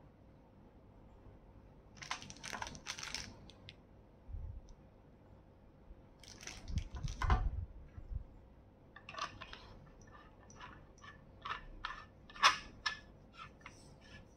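Parts of an aluminium rechargeable LED flashlight being handled and screwed together: scattered clicks and scrapes, a few low knocks in the middle, then a run of quick small clicks over the last few seconds.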